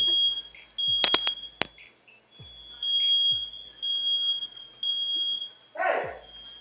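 Smoke alarm beeping over and over, one high beep about every second. A few sharp clicks come about a second in, and a short loud noisy burst comes near the end.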